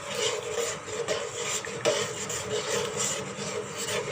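A spoon stirring and scraping food around a cooking pan in a run of irregular rubbing strokes.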